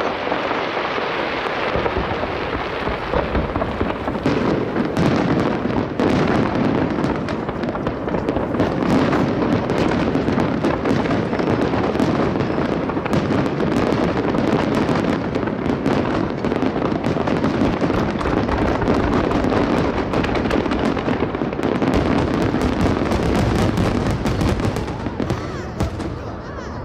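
Fireworks display: a dense, continuous run of aerial shell bursts and crackling, many reports a second. It eases off about a second before the end.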